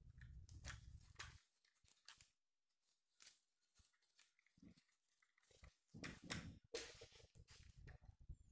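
Faint handling noise as plastic over-ear headphones and their cord are turned over in the hands: scattered rustles and light clicks, with low bumps in the first second and a half and again past the middle.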